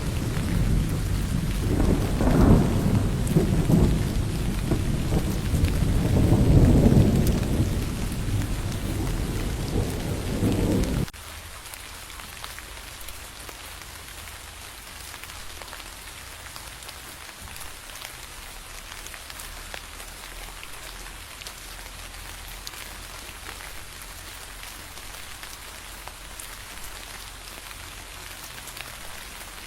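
Heavy rain with rolling thunder rumbling in swells, which cuts off abruptly about a third of the way through. Steady rain patter then continues.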